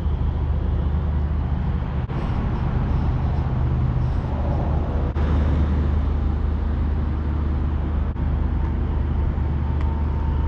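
Steady road noise and low engine hum of a moving car.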